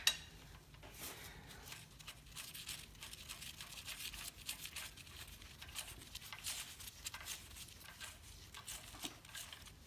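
Faint, irregular clicks, ticks and light scrapes of hand tools and metal engine parts being handled, with no steady rhythm.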